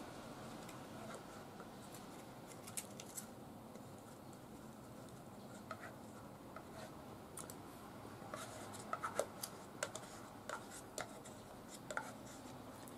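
Small spoon scraping and tapping inside a yogurt cup: faint, scattered scratches and light clicks, coming more often in the second half.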